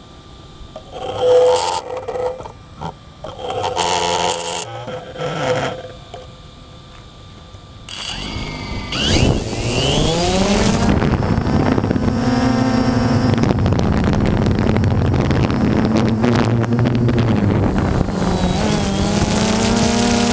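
Multirotor camera drone's motors spinning up with a rising whine about nine seconds in, then a steady loud propeller buzz as it lifts off and climbs. Before that, a few brief unclear sounds.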